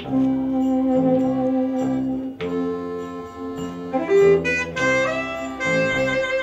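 A small live band playing: an accordion holding long reedy notes over a bass line that steps from note to note.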